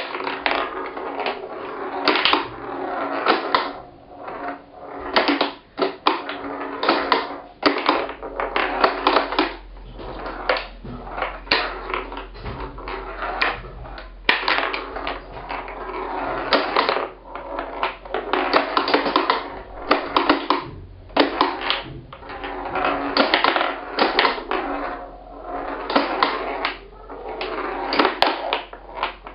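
Homemade plywood pinball machine in play: the ball rolls and rattles across the wooden playfield while the flippers clack. The knocks come in a dense, irregular run.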